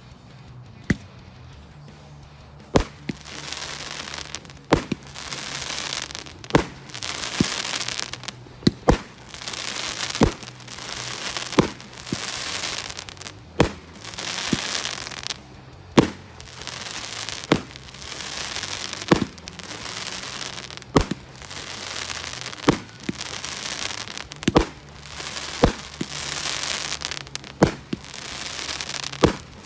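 A 19-shot 30mm firework cake firing its single shots one after another, a sharp thud or bang about every one and a half to two seconds, each followed by a hissing, fizzing spread of the burst's effects.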